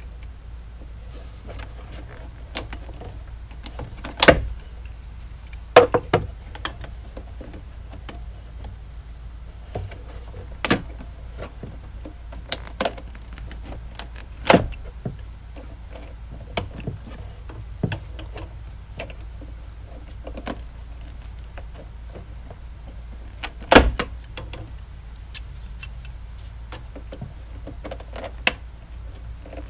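Pliers working a spring clamp off a coolant hose: irregular metallic clicks and knocks, three of them much sharper than the rest, over a steady low hum.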